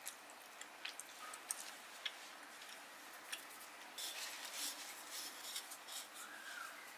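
Faint kitchen handling sounds: scattered light clicks and taps, then about four seconds in a soft rustling scrape as a paper towel wipes the rim of a stainless-steel food jar, and near the end the jar's metal lid being put on and screwed down.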